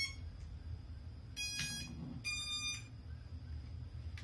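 Quadcopter electronic speed controllers sounding their power-up tones through the brushless motors as the battery is connected: the last note of a rising tune right at the start, then a short beep about a second and a half in and a longer beep just after two seconds.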